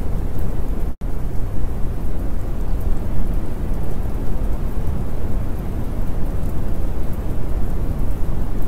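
Steady rushing noise, heaviest in the low rumble and thinning toward the top, like rain with thunder. It cuts out completely for a split second about a second in.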